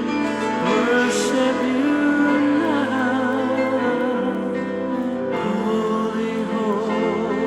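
Slow music: a singing voice with vibrato held over sustained chords.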